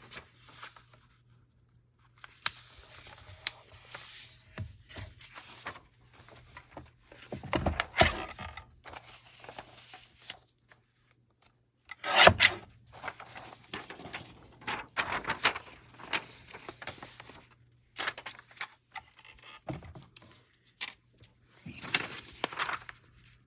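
Paper and card being handled and worked on a tabletop: irregular rubbing, sliding and scraping swishes with scattered sharp clicks, the loudest swishes about 8 and 12 seconds in.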